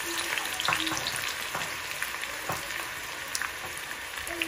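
Freshly added chopped onions sizzling in hot oil in a small saucepan: a steady frying hiss with scattered crackles and pops, easing off slightly as the oil settles.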